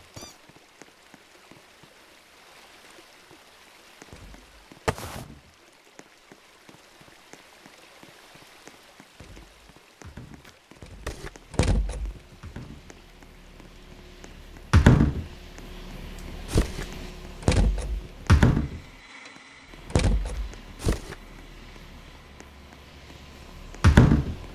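A series of irregular knocks and thumps, sparse at first and coming every second or so in the second half, over a faint steady low hum.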